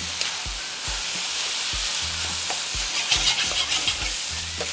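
Fried rice sizzling in a hot wok as it is stir-fried, with a steady hiss and scattered clicks and scrapes of the utensil against the wok.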